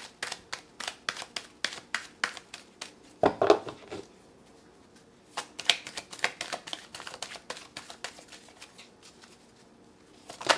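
Hand-shuffling a tarot deck: quick slapping card clicks at about four a second, with one louder, longer slap of cards about three seconds in and two brief pauses, one after about four seconds and one near the end.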